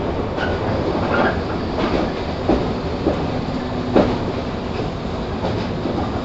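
Running sound of a JR 115 series 1000-subseries electric train heard from inside its motor car KuMoHa 115-1005: a steady rumble of wheels on rail with a few sharp knocks from the wheels passing over rail joints, the loudest about four seconds in.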